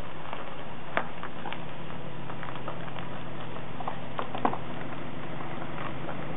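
A Honda Jazz reversing slowly over gravel: tyres crunching and popping on loose stones, over a steady low engine hum. Two sharper clicks stand out, about a second in and about four and a half seconds in.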